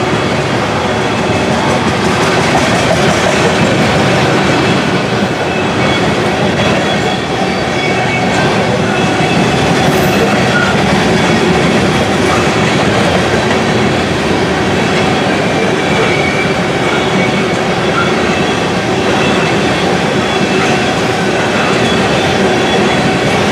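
Covered hopper cars of a freight grain train rolling past close by: a steady rumble and clatter of steel wheels on the rails, with faint thin squeals from the wheels now and then.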